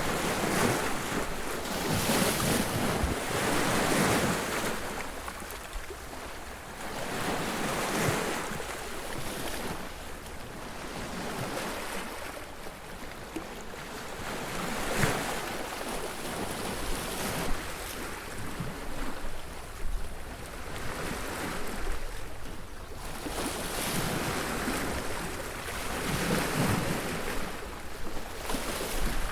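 Surf breaking on a beach: waves crashing one after another, each surge of rushing water swelling and then fading over a few seconds.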